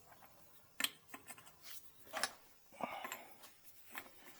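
Light metal clinks of a steel socket and hand tools against a rusted lug nut, a few short knocks followed by a brief scrape about three seconds in, as the socket is tried on a nut that rust has swollen out of its size.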